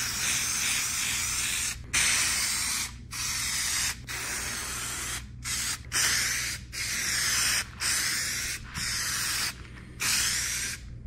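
Aerosol can of 3M spray adhesive hissing in a series of short sprays: about ten bursts of roughly a second each, with brief pauses between them.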